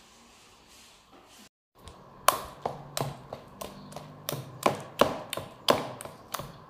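Spoon mixing mashed banana and rice-flour batter in a plastic tub. It knocks against the tub in sharp, regular taps, about three a second, starting about two seconds in.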